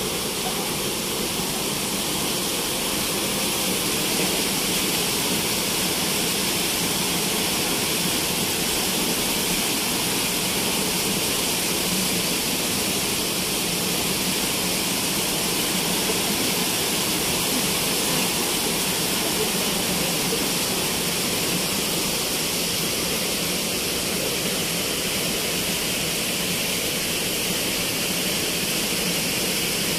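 Water pouring over a low weir in a steady, unbroken rush.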